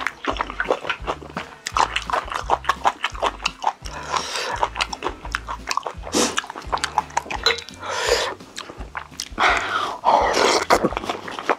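Close-miked eating: wet chewing with a rapid run of sticky mouth clicks and smacks, broken by a few longer noisy bursts.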